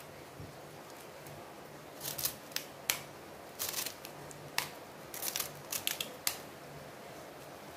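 Kitchen knife slicing through a handful of callaloo leaves held in the hand, cutting toward the thumb: a string of short, crisp cuts in small clusters, starting about two seconds in.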